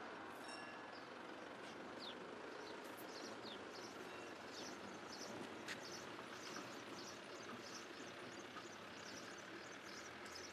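Faint outdoor rural ambience: a steady hiss with small birds chirping again and again in short, high-pitched calls, and a single sharp click near the middle.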